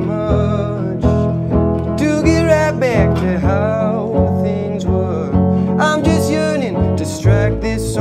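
A small band playing live: a voice singing over a strummed archtop guitar and a plucked upright double bass, whose low notes grow stronger near the end.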